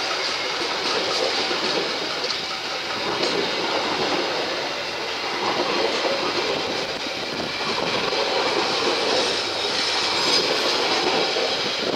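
KAI passenger coaches rolling past close by: a steady rush of wheel and rail noise, with the wheels clicking irregularly over the rail joints.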